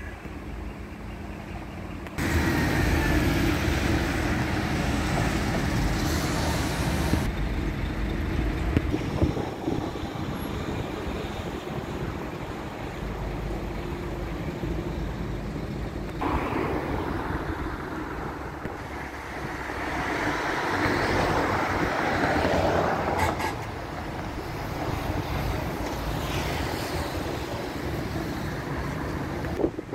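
Road traffic passing close by: a steady rush of cars that grows louder about two seconds in and swells again around the middle.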